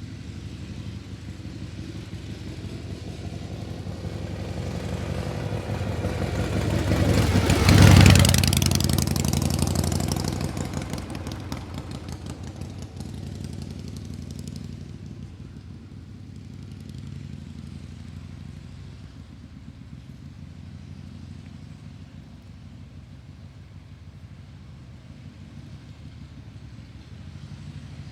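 A motor vehicle passes by: its engine grows louder to a peak about eight seconds in, then fades away, leaving a steady low engine hum.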